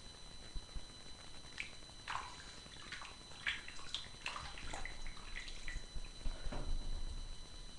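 Water splashing and dripping in a bathroom sink as a face is rinsed with cupped hands: a scatter of small irregular splashes and drips, with a few low knocks near the end.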